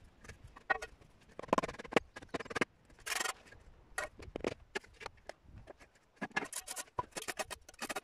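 A stainless-steel washing machine drum and concrete blocks clanking and knocking as the drum is set down onto the ring of blocks, several knocks ringing briefly like metal, with a short scrape about three seconds in.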